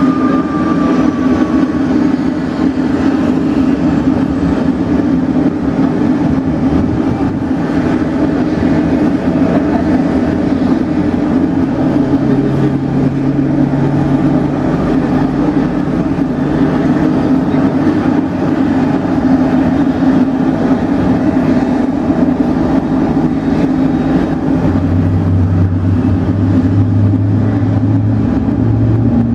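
Boeing 777-300ER's GE90 turbofan engines running loud and steady, with a thin high whine that slowly rises in pitch. A deeper hum comes in about halfway through and another near the end.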